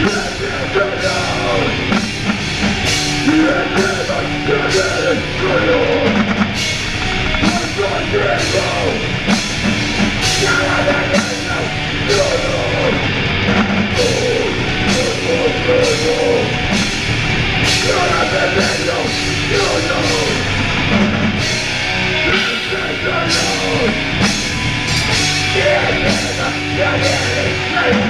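Live metalcore band playing: distorted electric guitar, bass and a drum kit with frequent cymbal hits, with a vocalist singing into a microphone over it.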